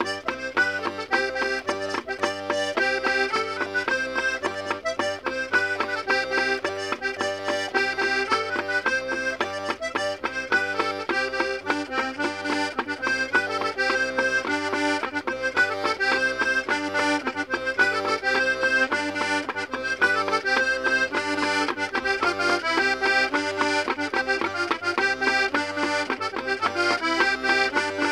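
Diatonic button accordion (mızıka) playing a traditional folk tune solo: a quick running melody over a steady alternating bass.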